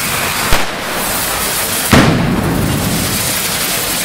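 Spark-spraying fireworks hissing steadily, with two sharp bangs, the louder one a little before the midpoint.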